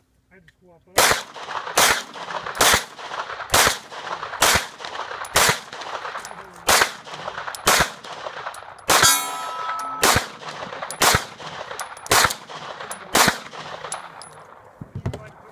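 A pistol firing a string of about a dozen shots at a steady pace, roughly one a second, starting about a second in. Near the middle, one shot is followed by about a second of metallic ringing.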